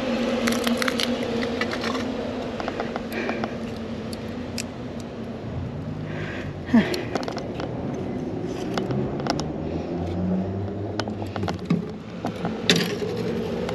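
A steady low mechanical hum, with scattered scrapes and clicks as fishing tackle and a cloth are handled. A sharper knock comes about seven seconds in and another near the end, and a deeper engine drone builds in the second half.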